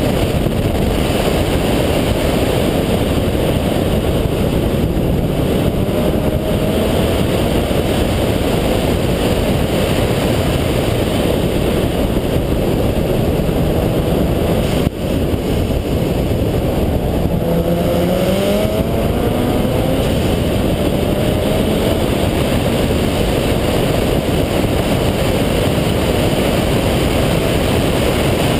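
A single-turbo Mazda RX-7's rotary engine running hard at track speed under a loud, steady rush of wind and road noise. About halfway through there is a brief dip with a click, then the engine note climbs in pitch for a couple of seconds as the car accelerates.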